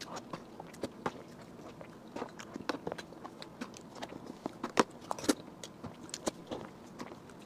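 A person eating soft chocolate cream cake from a spoon, picked up close by a clip-on microphone: an irregular run of wet mouth smacks and clicks, the two loudest about five seconds in.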